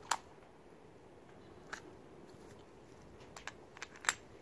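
Sharp clicks of the metal and plastic parts of an Umarex Smith & Wesson 686 CO2 air revolver as its grip is taken off and the grip frame handled. One click comes right at the start and another just under two seconds in, then a quick cluster in the last second, the loudest near the end.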